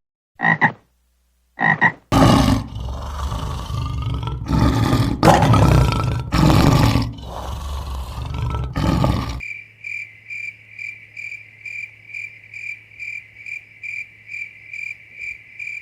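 Animal calls in sequence. First two short frog croaks. From about two seconds in, a loud, rough roaring in several long surges. From about nine seconds in, a high thin chirp repeated about two and a half times a second over a faint low hum.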